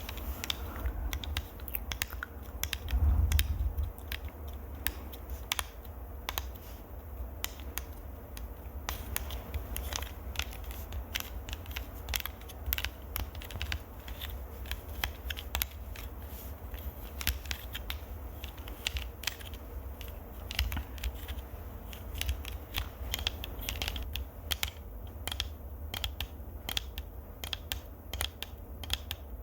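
Close-miked ASMR trigger sounds: a dense, irregular run of crisp clicks and crackles over a low rumble, with a heavier thump about three seconds in.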